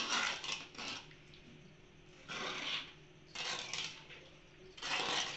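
Steel ladle stirring thick, oily chicken pickle masala in an aluminium kadai: four scraping, squelching strokes roughly a second apart, as the marinated chicken pieces are turned over.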